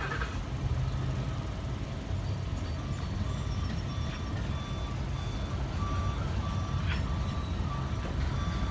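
Norfolk Southern freight train's diesel locomotives rumbling steadily as the train backs up, with thin high tones coming and going over the rumble from about three seconds in.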